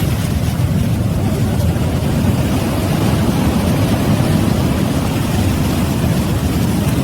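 Steady low rumble of a surge of water and ice rushing through after an ice dam bursts.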